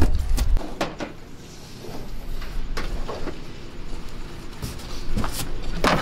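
Hard plastic parts knocking and clicking against each other in a cardboard shipping box as they are handled and shifted, a few scattered knocks with quieter handling in between.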